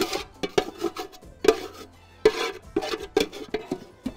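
Metal spoon scraping and knocking against the inside of an aluminium cooking pot as the contents are scraped out, in quick irregular strokes about two or three a second.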